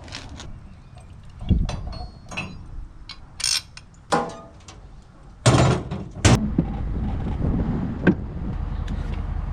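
Clunks and knocks, then an engine is started about five and a half seconds in and settles into a steady low running rumble.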